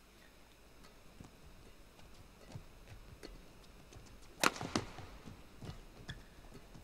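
Badminton racket smashing a shuttlecock, a sharp crack about four and a half seconds in, quickly followed by a second hit, with fainter taps and knocks of players moving on the court around it.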